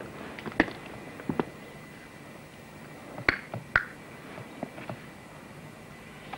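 Footsteps over rubble and broken clay roof tiles: irregular sharp clicks and knocks, the two strongest a little past the middle with a brief clink.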